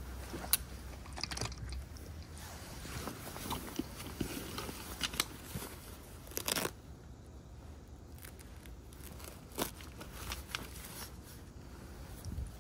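Hand-handling noise of camping gear: scattered clicks and knocks from spring-loaded steel log tongs, then rustling and scraping of a folding stool's canvas sack being rolled and strapped. The clicks are sharpest about half a second in and around five and nine and a half seconds, with a longer scrape near six and a half seconds.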